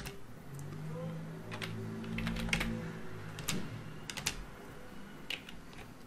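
Computer keyboard and mouse clicking: scattered single clicks and short runs of keystrokes, as a radius value is typed in and points are picked.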